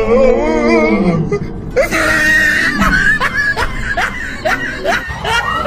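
Voices laughing and shrieking: a long wavering cry falling in pitch, a high shriek about two seconds in, then a string of short rising yelps.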